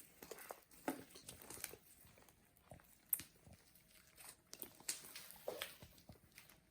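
Homemade glue and shaving-foam slime being squeezed and stretched by hand: faint, irregular small squishes and sticky clicks.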